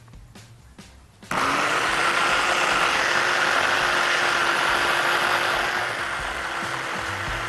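Electric hand blender with a chopper-bowl attachment switched on about a second in: the motor spins up and runs steadily as it whips soft cheese with yogurt and harissa, easing a little near the end.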